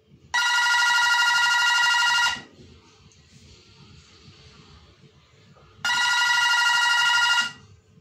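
Audio door phone's indoor unit ringing: a warbling electronic ringtone of a few steady tones, sounding twice for about two seconds each, set off by pressing the call button on the outdoor unit.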